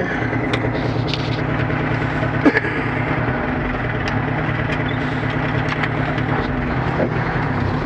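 Old dump truck's diesel engine running steadily while driving, heard from inside the cab, with a few sharp knocks.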